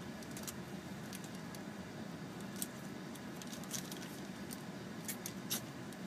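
Steady low hum of a car's interior with a few faint, sharp clicks and rustles scattered through it.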